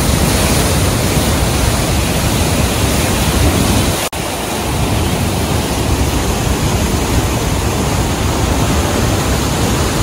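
The Rhine Falls in high water: the loud, steady rushing of a large waterfall, with one split-second dip about four seconds in.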